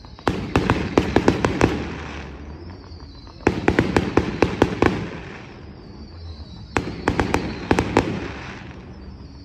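Fireworks display: three volleys of rapid sharp bangs, about three seconds apart, each one trailing off before the next.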